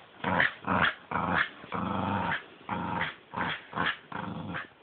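Dog play-growling during a tug of war over a glove, in a string of rough growls, some short and a few held for about half a second.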